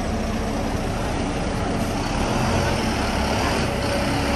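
Engine of a red double-decker bus running close by with a steady low rumble, over general street noise.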